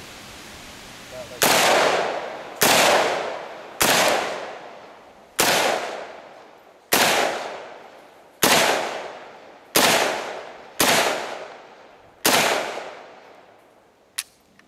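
AK-47 rifle in 7.62x39 firing nine single aimed shots, one every second or so, each followed by a long fading echo. A short sharp click comes near the end.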